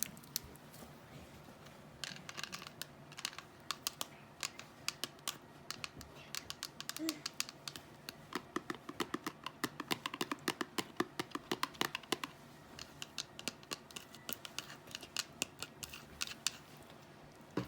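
Slime being played with using long glue-on nails: a long run of sharp clicks and taps, coming fastest in a quick rattling stretch around the middle.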